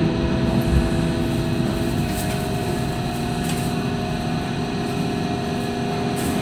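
The steady hum and rumble of a Hong Kong Light Rail tram heard from inside the car as it runs. A steady whine joins the hum about two seconds in.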